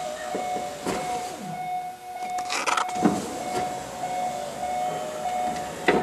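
Electric power window in a Factory 5 GTM door running the glass, with a few knocks and clicks along the way.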